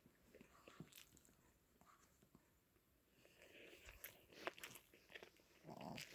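Faint chewing of a hot bar (Korean fish cake bar): soft, scattered mouth clicks and smacks, more frequent in the second half.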